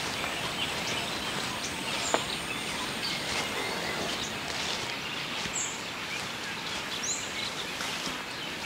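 Natural outdoor ambience: a steady hiss of background noise with scattered high bird chirps, two clearer ones past the middle. A single sharp knock stands out about two seconds in.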